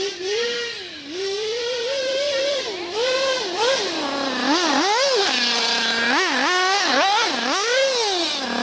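Two-stroke glow-fuel nitro engine (Alpha F850 five-port) of a radio-controlled Radiosistemi Crono RS03 buggy, revving up and down as the throttle is worked while it drives, its pitch repeatedly climbing and dropping with a short low steady stretch about six seconds in.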